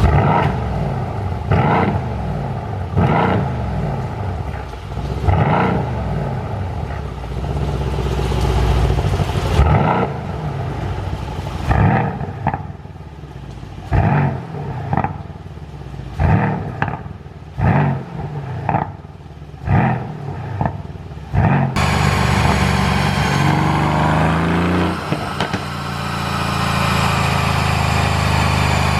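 Mercedes-AMG C63's twin-turbo V8 revved again and again, with pops and crackles from the exhaust as the revs fall: the sound of a pop-and-crackle exhaust tune. About two-thirds of the way in the sound changes to steadier running that climbs in pitch a few times.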